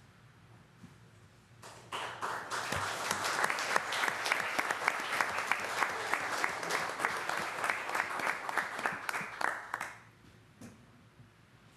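Audience applauding, starting about two seconds in and dying away about eight seconds later.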